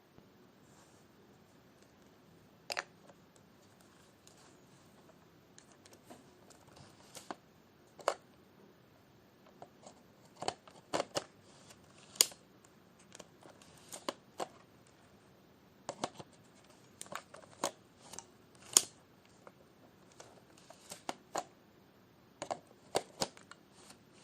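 Camera shutter clicking: single releases and quick pairs or short runs of clicks, irregularly spaced, sparse at first and coming every second or so from about the middle on.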